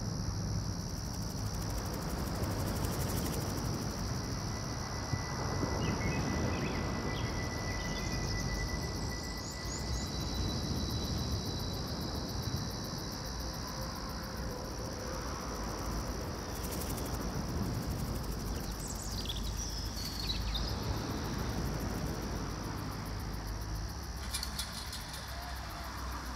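Outdoor ambience: a steady, high insect drone like crickets over a constant low rumble, with a few short chirps scattered through.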